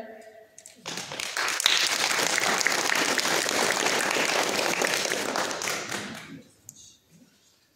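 Audience applauding after a song ends. The clapping starts about a second in and dies away after about five seconds.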